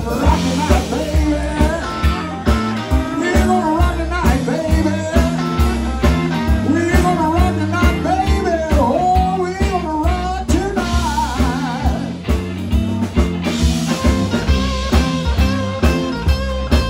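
Live blues band playing an instrumental break: an electric guitar lead with bent, wavering notes over a stepping electric bass line and drums.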